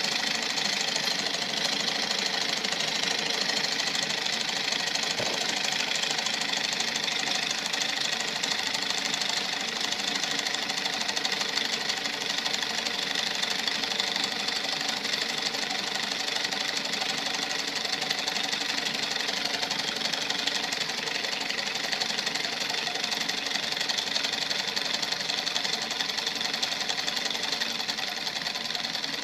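Homemade soda-can steam engine running, its syringe piston and CD flywheel making a fast, steady mechanical clatter.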